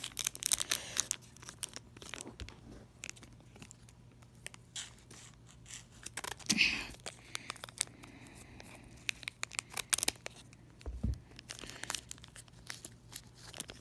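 Foil wrapper of a Pokémon trading card booster pack crinkling and tearing as it is worked open, in scattered short rustles and clicks, with a longer rustle about six and a half seconds in.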